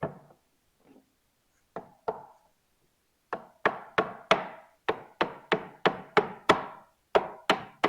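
Repeated knocks on a wooden log section as it is struck to seat it onto a nail and glue on the log below. A few single knocks come first, then a steady run of strikes about three a second through the second half.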